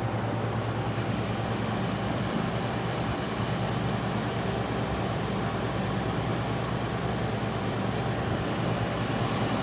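Fedders Weather Wheel window air conditioner running steadily, its rotary compressor humming under the fan noise. The unit is not blowing cold, and the compressor sounds to its owner like one that has lost its refrigerant charge.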